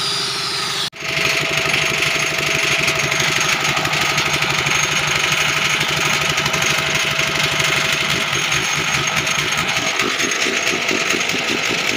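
A small engine running steadily, after a brief break about a second in.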